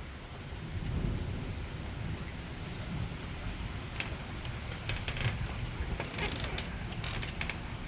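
Steady rain falling during a thunderstorm. A low rumble of thunder swells about a second in, and from about four seconds in there are scattered sharp taps of raindrops close to the microphone.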